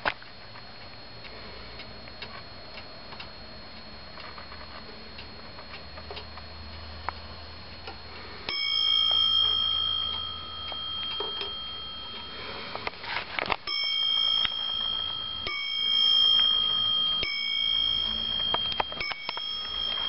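Warmink Sallander Dutch wall clock ticking faintly, then its bell striking: one strike that rings on for several seconds, followed by a run of strikes about every one and a half to two seconds.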